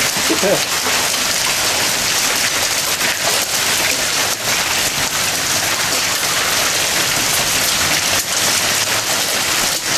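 Hailstorm: rain and hail coming down steadily, a dense hiss with a few sharper hits scattered through it.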